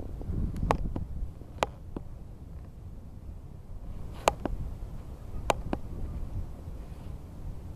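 Wind buffeting the microphone as a steady low rumble, with a handful of short sharp clicks scattered through.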